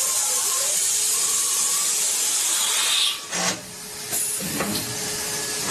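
Metalworking machine noise: a steady, loud high hiss that drops away about three seconds in, followed by quieter, rougher running noise.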